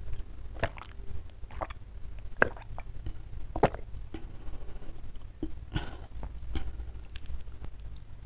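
A series of gulps as water is swallowed close to a clip-on microphone, then a few soft clicks and taps as food is picked up by hand.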